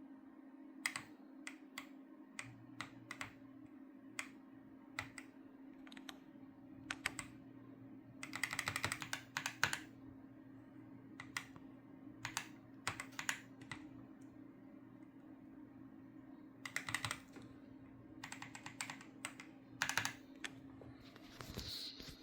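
Keystrokes on a mechanical keyboard with Cherry switches, single clicks and short quick runs of typing with pauses between. A steady low hum sits underneath.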